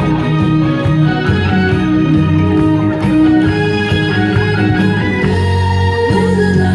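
Upbeat instrumental song accompaniment with guitar over a steady beat, with no singing.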